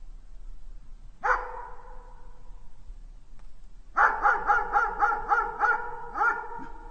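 A dog barking: one bark about a second in, then a quick run of about nine barks, some three or four a second, each leaving a ringing echo behind it.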